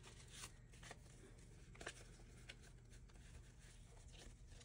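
Faint rustle and a few soft, crisp flicks of paper banknotes being handled and counted by hand, over a low room hum.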